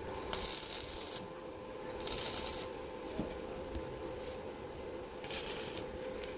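Metal lathe running with a steady hum, with three short bursts of rough, hissing scraping noise over it: about a third of a second in, at two seconds, and just after five seconds.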